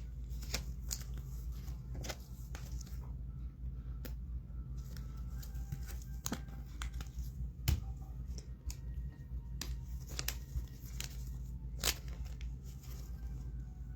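Trading cards and plastic sleeves or wrappers being handled at a table: scattered sharp ticks, rustles and crinkles over a steady low hum.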